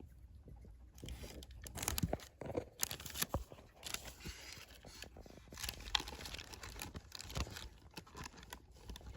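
Baby opossum biting and chewing at a whole grape: irregular wet crunching and smacking from about a second in, with a few sharper clicks. The grape is too big for her to manage.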